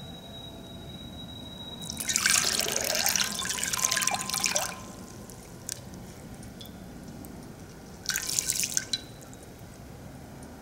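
Water poured from a glass pitcher splashes into a large glass bowl for about three seconds, then a shorter splash of water comes about eight seconds in.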